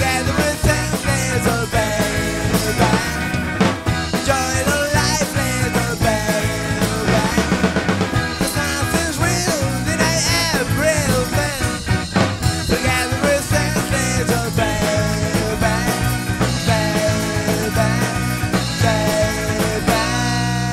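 Indie rock band playing live on two electric guitars, bass guitar and drum kit. Just before the end the drums stop and a held chord is left ringing.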